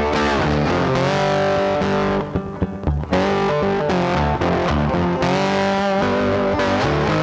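Background music led by a guitar with distortion, with a brief drop in loudness a little over two seconds in.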